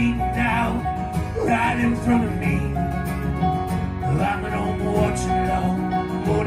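Live country-bluegrass music: a fiddle bowing sustained, sliding notes over a strummed acoustic guitar.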